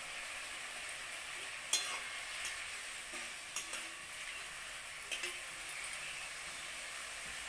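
Vegetables sizzling steadily in hot oil and ghee in a kadai while being stirred, the stirring utensil knocking against the pan a few times.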